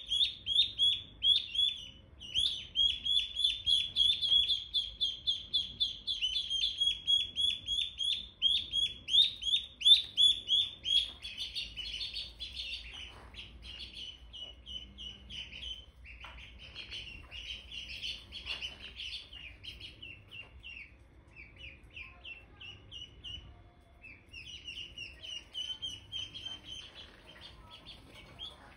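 Ducklings peeping: rapid, repeated short high chirps, about four a second. Loud and dense for the first ten seconds or so, then fainter and more scattered.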